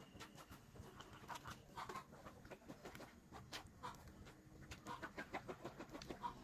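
Hens clucking softly, mixed with the light scrapes and taps of a spoon working porridge against a mesh sieve.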